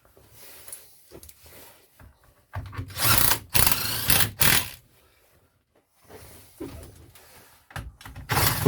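Power drill running in short bursts while driving in the screws of the strimmer engine's casing. The loudest stretch comes about three seconds in, with another burst near the end and light handling knocks between.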